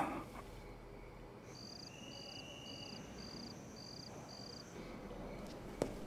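Crickets chirping: six even, high chirps a little over half a second apart, over a faint steady high insect trill. A single sharp click sounds near the end.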